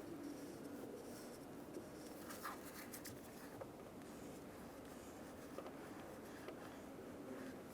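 Faint scratching of lines being drawn on the car's painted metal body to mark the upper door hinge's position, with a few light ticks.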